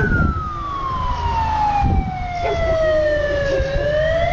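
Fire brigade siren wailing in a slow cycle: its pitch falls steadily for about three and a half seconds, then starts climbing again near the end.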